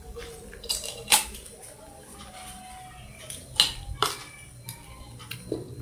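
Baby monkey biting and chewing a fresh guava: a run of crisp clicks and crunches, with two sharper ones about a second in and about three and a half seconds in.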